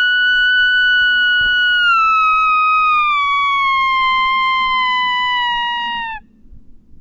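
A long, lone coyote-style howl. It is loud and clean, holds a high pitch for about two seconds, then slowly falls away and cuts off about six seconds in.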